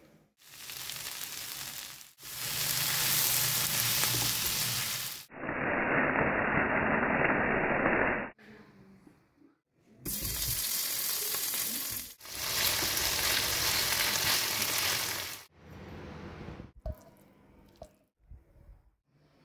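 Paneer cubes sizzling as they fry in hot oil in a pan. The sound comes as several loud sizzling stretches, each cut off abruptly, followed near the end by quieter scattered clicks and knocks.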